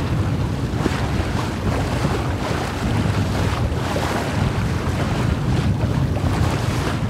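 Wind buffeting the microphone over the rush and splash of water along the hull of a C&C 34 sailboat under way through choppy water. The wind is strongest in the low end and the sound is uneven, with no steady tone.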